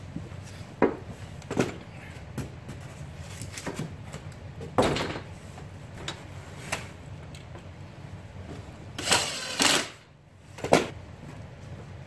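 Scattered knocks and clunks of wooden strips and a cordless drill being handled and set down on a wooden floor, with a louder noisy burst lasting under a second about nine seconds in.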